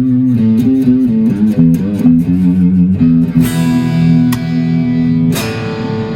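1960s Silvertone 1446 electric guitar played through an amp: a quick run of single picked notes, then a chord left ringing and another strum about five seconds in that rings out.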